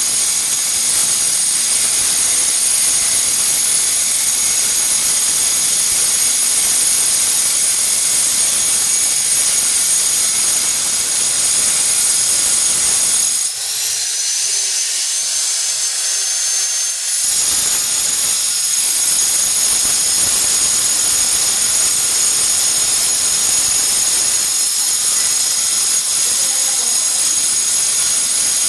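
Electric angle grinder running at high speed, its disc cutting glass with a steady high whine and grinding noise. About midway the grinding noise drops away for a few seconds, leaving the motor whine rising slightly, then the cutting noise comes back.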